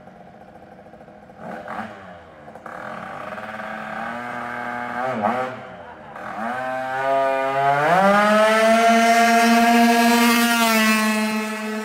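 Beta Ark scooter's Minarelli two-stroke with a 70 cc Malossi cylinder kit and Malossi exhaust, accelerating on a test run. Its pitch rises, eases off, then climbs steeply about seven seconds in and holds at high revs, loudest near the end as it comes close.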